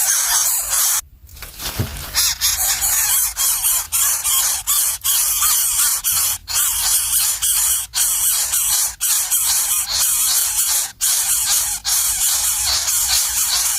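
Nestlings' shrill begging calls, a dense, continuous high-pitched squealing broken by short gaps every second or so.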